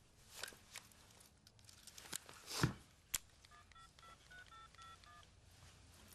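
Mobile phone keypad tones: a quick run of about ten short beeps as a number is dialled, after a few rustles and clicks of handling.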